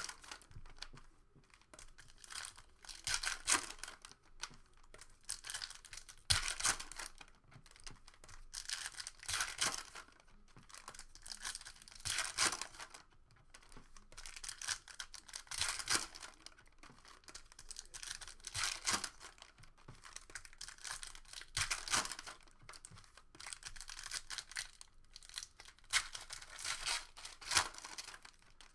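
Foil wrappers of Panini Donruss Optic trading-card packs torn open and crinkled one after another, in repeated bursts of tearing with short pauses between.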